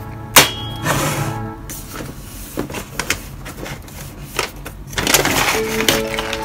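Soft background music plays throughout, with one sharp knock about half a second in and a few lighter clicks and knocks as a glass clip-top storage jar is handled and set down on the counter.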